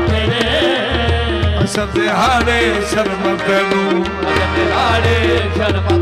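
Qawwali ensemble playing an instrumental passage between sung lines: a harmonium melody over a tabla beat, with some wordless vocal glides.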